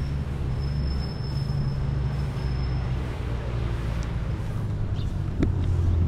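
Motor vehicle engine running nearby: a steady low rumble, as of traffic on the road beside the church grounds.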